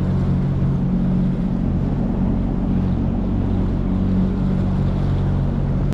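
Outboard motor of a Highfield Sport 390 inflatable boat running steadily at cruising speed, a constant low engine hum with water noise from the hull.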